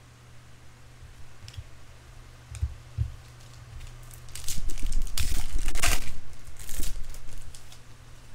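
Crinkling and tearing of a trading-card pack wrapper being handled, with a few soft clicks at first and a loud burst of crackly crinkling from about four seconds in that dies away near the end.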